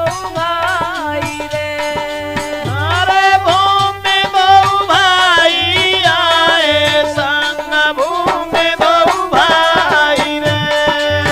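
Holi folk song accompaniment: a dholak beating over a melody of held notes that bend and slide in pitch.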